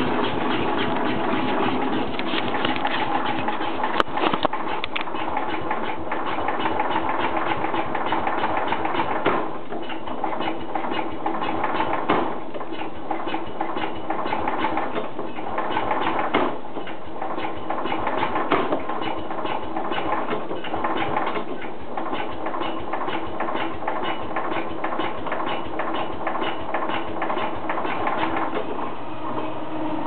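Single-cylinder Kohler engine of a Cub Cadet 127 garden tractor running steadily with a rapid, even chugging, cold.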